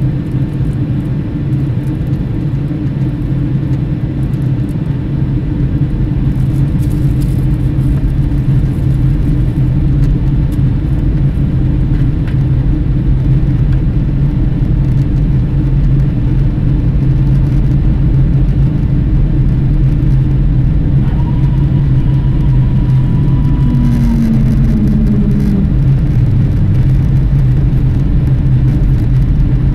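Steady cabin noise of a jet airliner in flight, heard from inside at a window seat: a loud, even rumble and hum of the engines and the air rushing past. A thin steady tone sounds for about three seconds around two-thirds of the way through.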